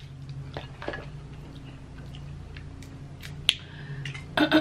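Cooked Dungeness crab being pulled apart by hand and eaten: scattered sharp clicks and crackles of shell, with chewing between and a louder burst of noise near the end.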